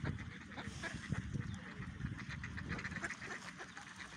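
Many ducks quacking at once, short calls overlapping thickly, over a low irregular rumble.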